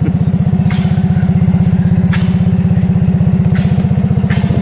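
Small engine running steadily at a fast, even beat, as from a slow-moving cart or utility vehicle, with a few faint clicks and rattles over it.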